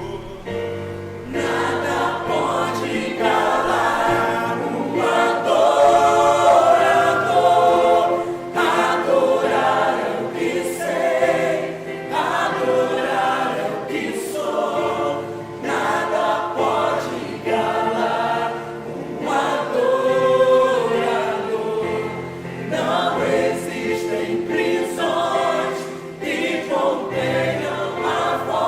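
Church choir singing a hymn in phrases of several seconds, over sustained low notes.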